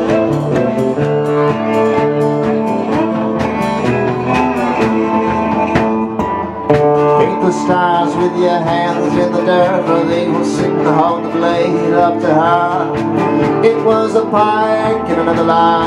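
A live acoustic band playing: strummed acoustic guitar, tuba, drums and cello, with a man's voice singing from about seven seconds in.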